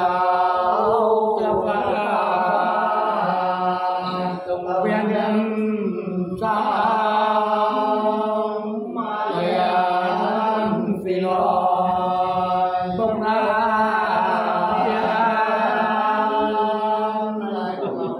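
A group of men singing Sán Dìu soọng cô folk song unaccompanied: their part of an antiphonal male–female exchange, sung as long, slow, drawn-out chanted phrases with short breaths between them.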